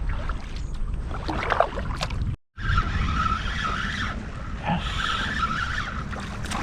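Wind and water noise around the kayak, broken by a brief cut about two and a half seconds in; after it, a fishing reel whirring in two spells as line is worked.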